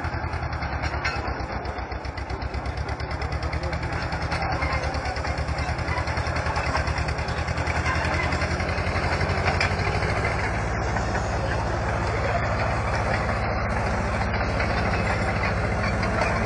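Small vintage crawler dozer's engine running steadily, with a rapid, even exhaust beat, as the machine is driven; the engine note changes about ten seconds in.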